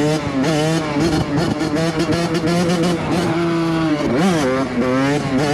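Suzuki RM85 two-stroke dirt bike engine under way: it holds a steady pitch through the middle, then revs up and drops back sharply about four seconds in.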